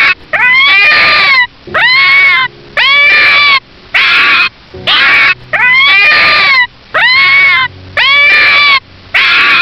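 An animal giving loud, high-pitched calls over and over, about one a second, each rising and then levelling off or dipping.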